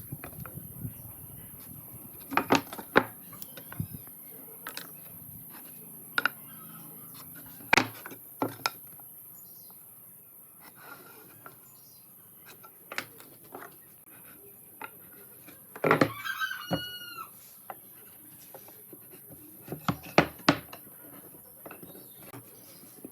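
Scattered sharp knocks and clicks of wood and tools being handled at a bench. A few short bird calls come in around the middle, likely a chicken clucking.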